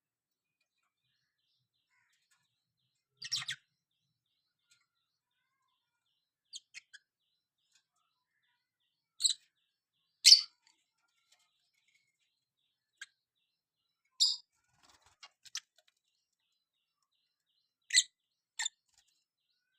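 Lovebirds giving short, sharp chirps, singly and in small clusters, with gaps of a second or more between.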